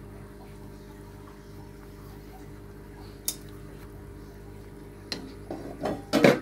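Steady low hum, then metal utensil knocks and clatter against a cooking pot: one click about three seconds in, and a quick run of knocks near the end, loudest just before it stops.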